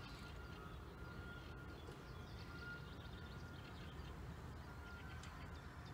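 Faint outdoor ambience: a low steady rumble with faint bird chirps above it.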